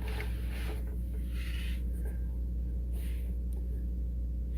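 A socket on an extension scraping and rubbing against metal in a few short strokes as it is worked into place onto a bolt, over a steady low hum.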